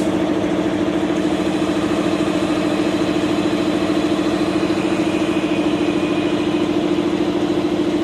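Diesel locomotive engine idling: a steady drone with a fast, even throb.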